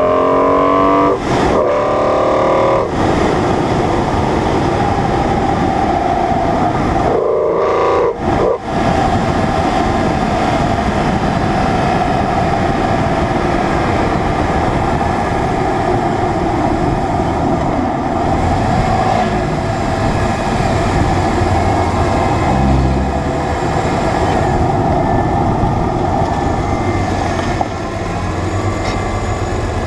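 BMW E46 M3's S54 straight-six engine and intake, heard from the front of the car while it is driven with a manual gearbox. The revs climb hard with quick breaks at the upshifts in the first few seconds and again about seven to eight seconds in. Then it cruises at steady revs with road and wind noise, and the revs drop a little near the end.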